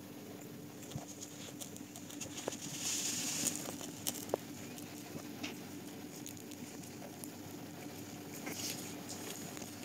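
Twelve-day-old puppies shuffling against each other on a fabric blanket: soft scratching and rustling with small clicks, louder about three seconds in and again near the end, over a faint steady low hum.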